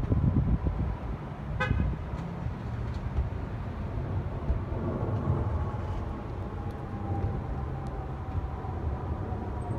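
Jet airliner passing overhead out of sight: a low rumble with a faint whine that slowly falls in pitch in the second half. A brief car horn toot about a second and a half in, and wind buffeting the microphone at the start.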